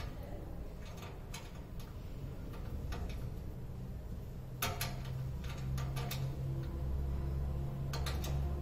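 Small sharp clicks and ticks as a screw is turned by hand to fix a wall-mounted vending machine to the wall. A low steady hum comes in about halfway through.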